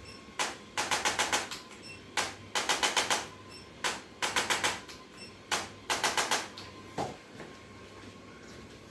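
Four bursts of sharp, rapid mechanical clicking, each a single click followed by about five more in quick succession, roughly eight a second, and a last lone click near the end.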